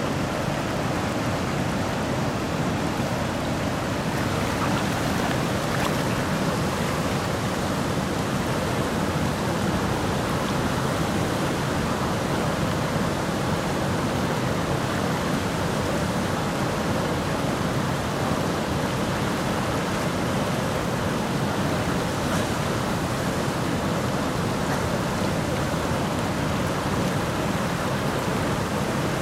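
River rapids churning below a low dam, with water pouring over the spillway: a steady rushing noise that does not let up.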